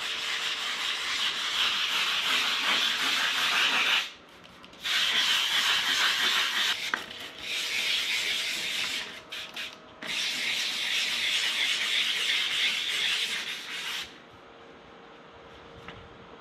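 400-grit sandpaper rubbed back and forth by hand over a wet plastic headlight lens: wet sanding off the oxidation. A steady scratchy scrubbing in several stretches, with brief pauses about four and nine seconds in, stopping about fourteen seconds in.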